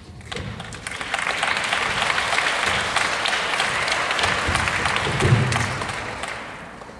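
Audience applauding, swelling in within the first second and dying away near the end.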